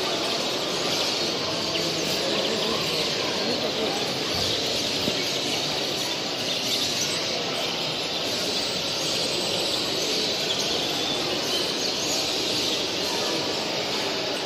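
Dense chorus of many caged show finches, European greenfinches among them, chirping and singing at once, over a steady murmur of people's voices in the hall.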